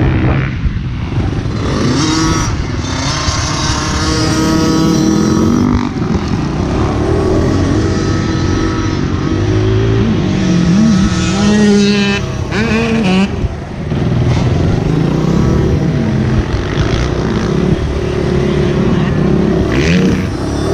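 Honda CRF80 pit bike's small four-stroke single-cylinder engine revving up and down as the rider works the throttle and shifts around the track, the pitch rising and falling several times.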